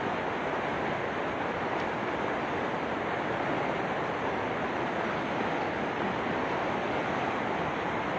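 Steady rushing noise of fast-flowing floodwater, even and unbroken.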